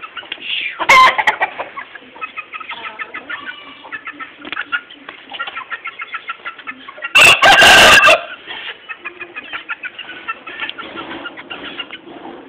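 Aseel chickens clucking with many short calls throughout. One loud short call about a second in, then a rooster crows very loudly for about a second a little past the middle.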